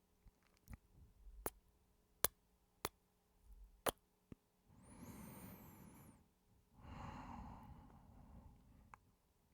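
Close-miked kissing: about five sharp lip smacks spread over the first four seconds, then two long breathy sighs.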